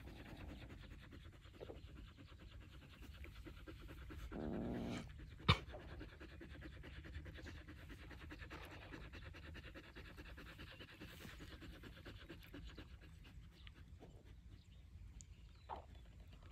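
A dog panting steadily and faintly. A brief louder noise comes at about four and a half seconds, and a single sharp click follows about five and a half seconds in.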